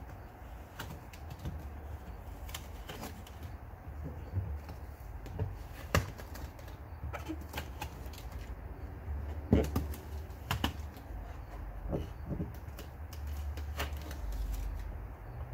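Scattered clicks and knocks of hands working a Lippert screwless window's frame and glass loose from an RV entry door. The loudest knocks come about six, nine and a half and ten and a half seconds in.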